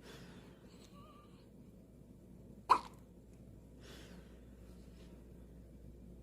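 Five-day-old newborn baby hiccupping: one short, sharp hic about two and a half seconds in.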